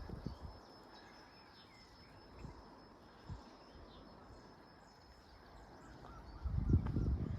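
Outdoor rural background with faint bird chirps and a thin steady high-pitched tone, a few soft thumps like footsteps, and a louder low rumble about six and a half seconds in.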